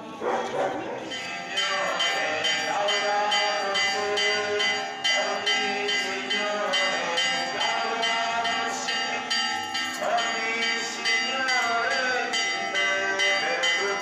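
Church bells pealing in quick repeated strokes, about three a second, building up over the first couple of seconds, with crowd voices underneath.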